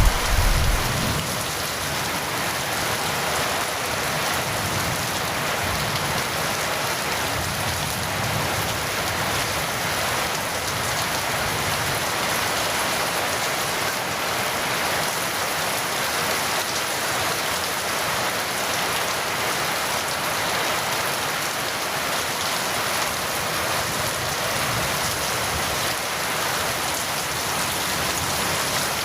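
Steady rain falling, an even hiss with no letup, as the last of a low thunder rumble dies away in the first second.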